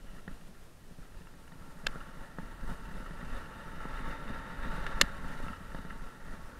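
Mountain bike rolling fast over a dirt trail: low tyre and wind rumble on the helmet-mounted camera, with a faint steady whirr. Two sharp clacks of the bike rattling over bumps come about two and five seconds in.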